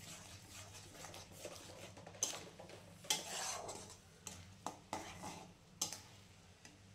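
Steel spatula stirring spinach paste and masala in a metal kadhai, scraping and clinking against the pan in irregular strokes.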